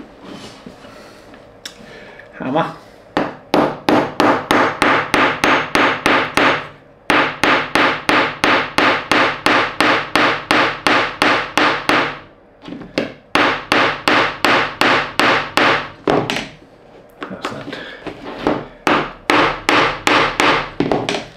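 Small hammer tapping a fixing pin back into its hole in the hardwood block of an automaton's mechanism. The light, quick strokes come at about four a second, in several runs broken by short pauses.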